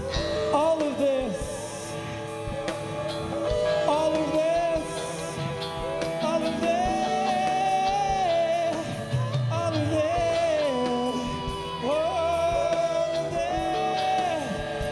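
Live rock band (drums, bass, guitar and keys) playing while a male lead singer sings long, sliding, held notes without clear words.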